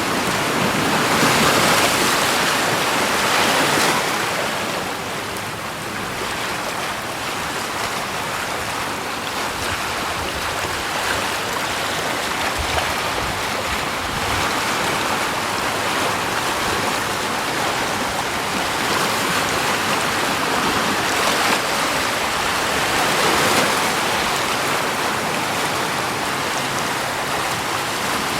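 Steady rushing water, swelling and easing slowly a couple of times.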